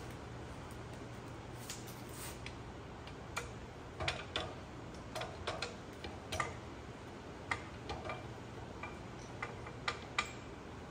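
Irregular light clicks and knocks from hand work at a floor jack and a truck leaf spring: tools and parts being shifted and set, loosely spaced with a cluster about four to six seconds in. A steady low hum runs underneath.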